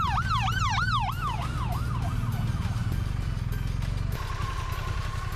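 An emergency vehicle's siren in a fast yelp, sweeping up and down about three times a second and fading away within about three seconds, over a steady low engine rumble. Background music begins about four seconds in.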